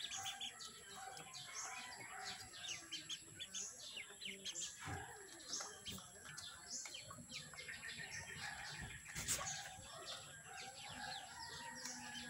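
Poultry calling: a steady stream of short high peeps and chirps mixed with lower clucking. There are two sharp taps, the louder one about nine seconds in.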